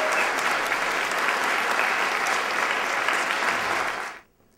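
Audience applauding steadily, then cut off suddenly about four seconds in.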